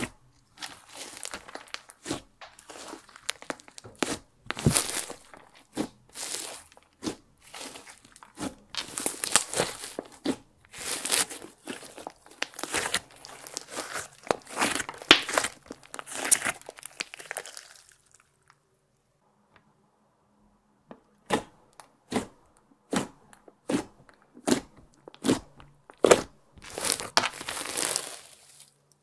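Thick slime, clear slime mixed with crushed makeup and glitter, being kneaded and squeezed by hand, giving a dense run of sticky clicks and pops. After a pause of about three seconds come separate sharp pops about twice a second as fingers poke into the slime.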